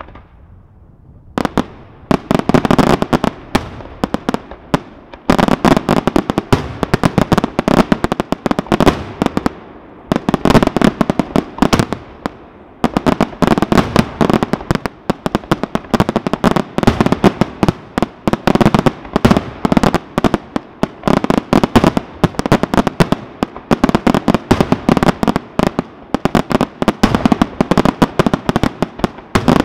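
Aerial fireworks display firing a rapid, dense barrage: shells launching and bursting in quick succession, their sharp bangs overlapping almost without a break. It starts about a second and a half in and eases briefly twice before picking up again.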